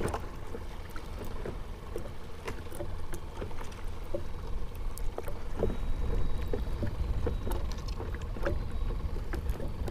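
Small waves lapping and slapping against a plastic kayak's hull, with scattered light knocks and a steady low rumble underneath.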